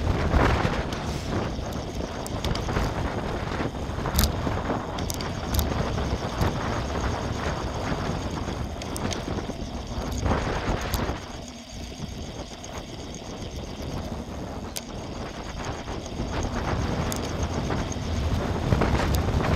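Wind buffeting the microphone of a bicycle-mounted camera while riding, over a steady rumble of tyres on tarmac, with scattered sharp clicks and rattles from the bike. The noise eases briefly about halfway through, then builds again.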